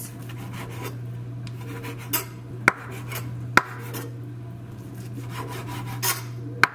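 Kitchen knife sawing through raw bacon on a wooden cutting board, the blade rasping through the strips with a few sharp knocks against the board, over a steady low hum.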